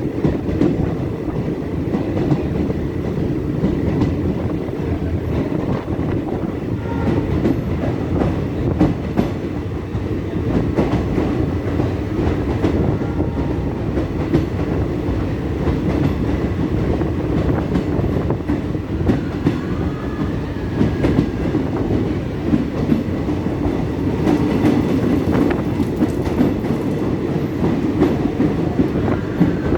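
Passenger train running through a long tunnel: a loud, steady rumble of wheels on rails with faint clicks, heard from inside the coach.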